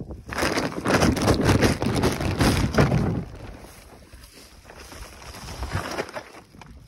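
Plastic tarp rustling and crinkling as it is pulled out of a plastic tube and shaken open, loudest for the first three seconds, then quieter rustles with a few light clicks near the end.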